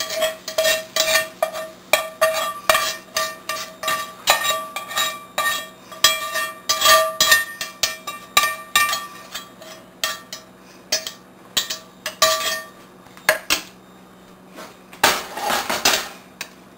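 Metal spatula scraping and tapping a cast iron skillet as browned onions and green peppers are knocked out into a ceramic slow cooker crock: a quick string of sharp clinks with a ringing tone, thinning out after about ten seconds, with a last flurry near the end.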